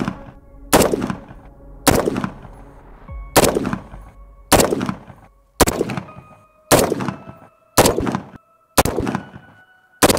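AR-15 with a 10.3-inch barrel firing a slow string of about ten unsuppressed shots, roughly one a second, for a chronograph velocity string. Each shot is a sharp crack followed by a fading echo.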